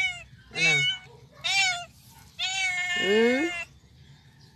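Tabby cat meowing repeatedly: three short meows, then a longer drawn-out meow about two and a half seconds in.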